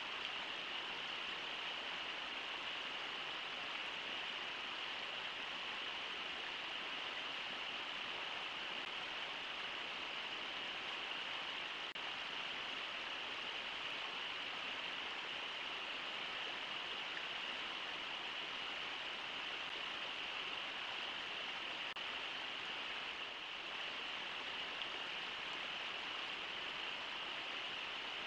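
River water rushing steadily over rocks in the shallows, an even, unbroken sound.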